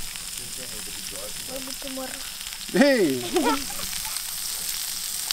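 Pieces of fish frying in a pan set on open coals, a steady high sizzle, with a fork turning them in the pan. A voice calls out loudly about three seconds in.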